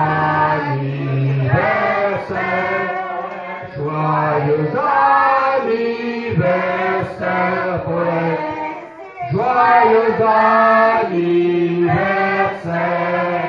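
A small group of men and women singing together into microphones, in phrases of long held notes with short breaths between them.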